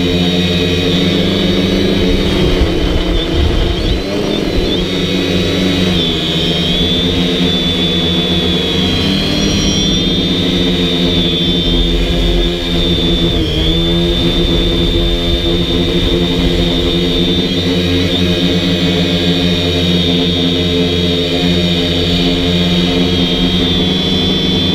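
DJI Flamewheel F450 quadcopter's four electric motors and propellers whining steadily in flight, the pitch shifting a little now and then as the throttle changes.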